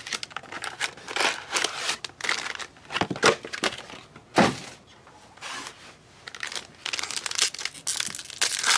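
Trading-card box packaging being torn open and crinkled by hand, in short irregular crackles, with one louder sharp snap about halfway through.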